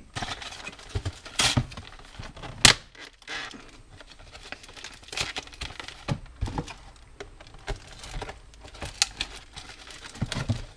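Cardboard and plastic packaging of a toy building set being torn open and handled roughly: crinkling and tearing, with scattered sharp clicks and snaps, the loudest about two and a half seconds in.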